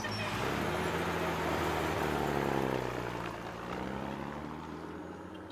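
Dump truck engine revving as the truck pulls away. Its pitch rises, then drops and the sound fades after about three seconds as it drives off.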